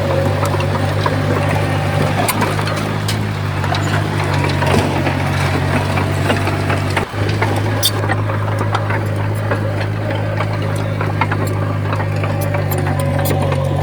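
Komatsu D31P bulldozer's diesel engine running steadily, with scattered sharp clicks and clanks over it and a brief dip in the sound about seven seconds in.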